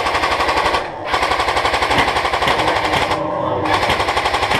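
Airsoft rifle firing full-auto in fast, evenly spaced bursts, with two brief pauses between them, about one second and three seconds in.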